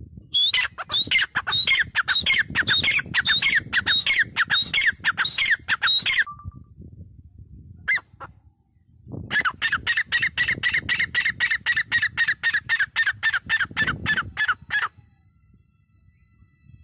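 Grey francolin calling: two long runs of loud, harsh notes repeated about four times a second, each note dropping in pitch, with a single note in the pause between the runs.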